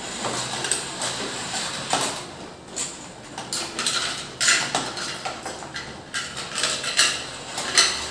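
Irregular light plastic clicks and rattles: small toy fishing rods and a toy net knocking against the plastic fish and the pond of a children's fishing-game toy.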